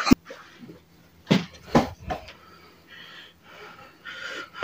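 Stifled laughter: a few short breathy bursts of held-in laughing, with breathing between them.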